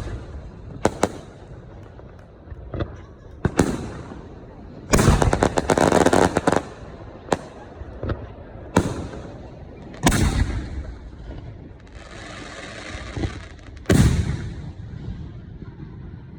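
Professional aerial firework shells bursting one after another, a sharp bang every second or two. Midway a dense run of rapid crackling cracks, and later a few seconds of hissing between the bangs.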